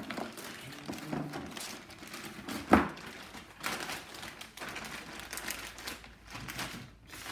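Plastic bag crinkling and rustling as a bagged rifle is handled and lifted out of its cardboard packing box, with one sharp knock a little under three seconds in.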